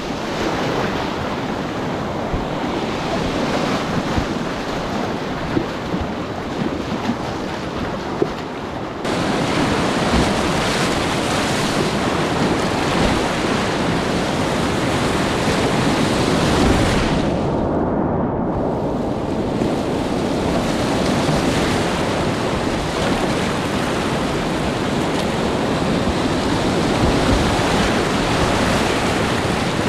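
Class IV whitewater rapids rushing and splashing close around a kayak, as a steady roar of water. The roar gets louder about nine seconds in. Around eighteen seconds it goes briefly muffled, losing its hiss.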